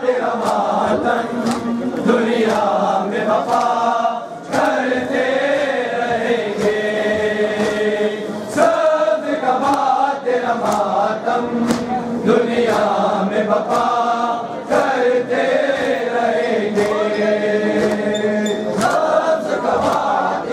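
Men reciting a noha, a Shia lament, in chorus, their voices rising and falling together, with sharp slaps of matam, chest-beating, keeping a steady beat under the chant.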